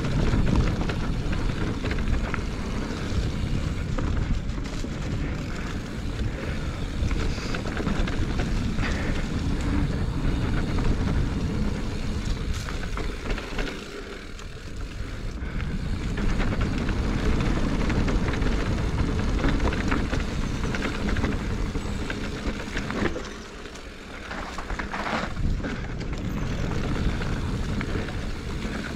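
Rushing wind and tyre noise from a mountain bike ridden along a dirt trail at speed. The level dips briefly twice.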